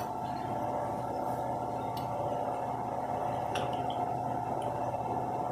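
Small electric motor of a gearbox kit running and driving its gear train: a steady whir with a couple of light clicks.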